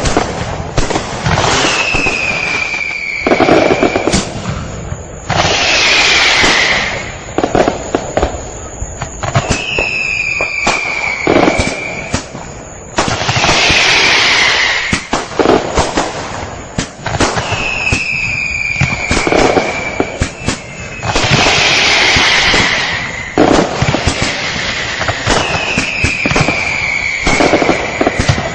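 Fireworks going off continuously: dense crackling and popping, with a falling whistle followed by a loud burst about every four seconds.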